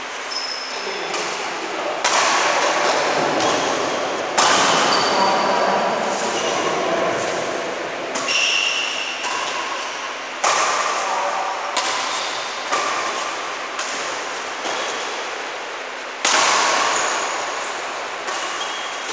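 Badminton rackets hitting a shuttlecock back and forth in a doubles rally: a sharp strike about every second, each ringing on in the echo of a large hall.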